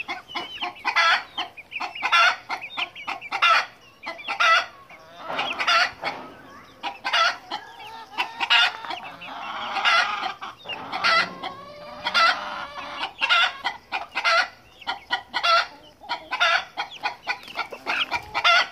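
A flock of chickens clucking: many short, sharp calls in quick succession, with a longer, drawn-out call about ten seconds in.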